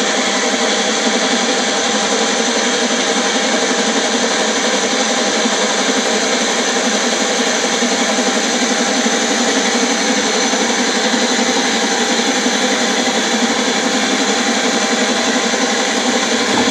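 Magic Bullet personal blender running steadily as it blends apples into juice.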